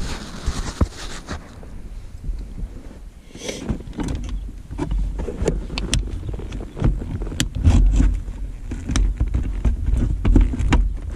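Scattered clicks and knocks of hands working at a car's emergency brake handle assembly as parts are unhooked, over low rumbling thumps close to the microphone.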